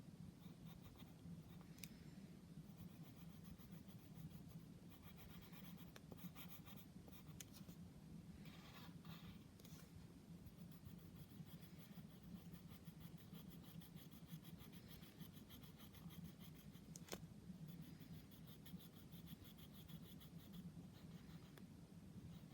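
Faint scratching of a drawing tool stroking across paper, in quick repeated strokes, over a low steady hum.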